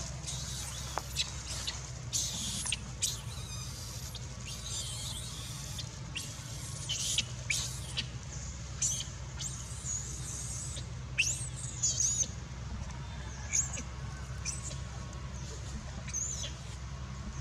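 Baby macaque squealing in a string of short, high-pitched squeaks and cries, scattered irregularly over a steady low hum.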